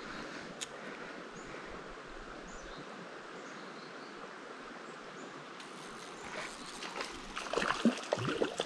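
Steady flow of a small trout creek, with a single sharp click about half a second in. In the last two seconds irregular splashing builds and grows louder: a hooked trout thrashing at the surface.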